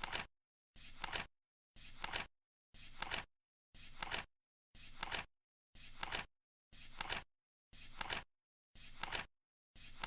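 Flip clock flapping once a second as the countdown ticks down: each time a soft flutter of the turning card, ending in a sharp clack or two, with dead silence between flips.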